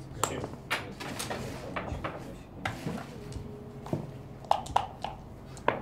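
Scattered sharp clicks and clacks of backgammon dice and checkers as the dice cup is handled over the board, the loudest clacks near the end.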